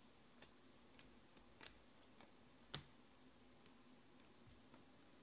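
Faint, scattered clicks of glossy trading cards being flicked and slid one by one from the front of a stack to the back, the sharpest click about two and three-quarter seconds in, over a low steady room hum.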